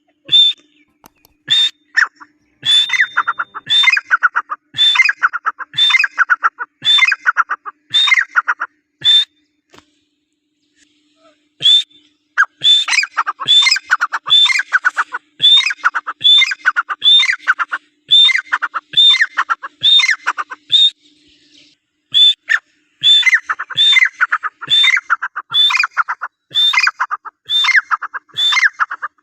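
Partridge (teetar) calling over and over, each call a short high note running into a harsh falling rasp, just under two calls a second. It calls in three runs, with short pauses about a third and two thirds of the way through.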